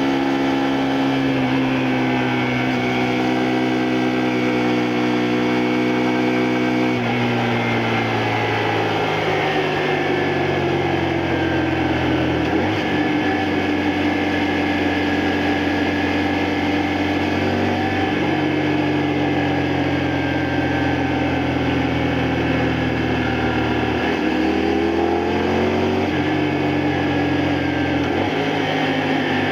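2002 Honda Varadero 125's small V-twin engine running under way on a ride, heard from the bike. Its pitch steps down about seven seconds in and climbs and drops again near the end.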